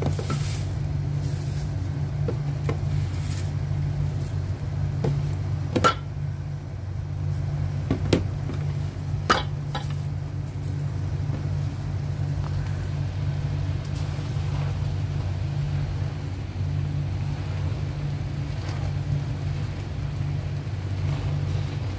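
Steady low hum of a running kitchen appliance, broken by a few sharp knocks of cookware against the wok near the middle.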